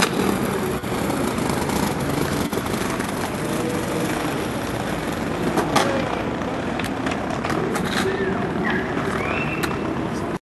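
Skateboard wheels rolling over brick paving with a steady rumble, with a sharp clack of the board about six seconds in. The sound cuts off suddenly near the end.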